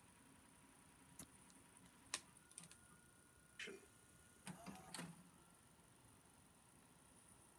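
Near silence, broken by a few faint scattered clicks, a cluster of them about four and a half to five seconds in.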